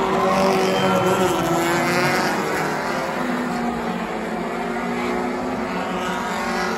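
A pack of Stadium Stocks race cars running past in close formation, several engines rising and falling in pitch as they go through the turn, with the grandstand crowd cheering in the first couple of seconds.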